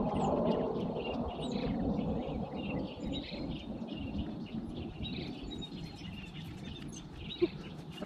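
Outdoor ambience: many small birds chirping and singing over a low, steady background rumble.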